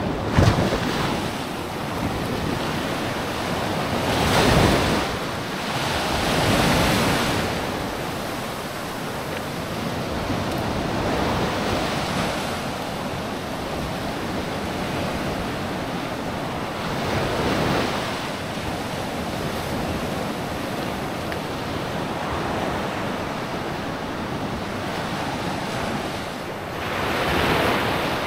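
Small sea waves breaking and washing up the shore close by, swelling at uneven intervals every few seconds, with wind on the microphone. A brief sharp thump comes just after the start.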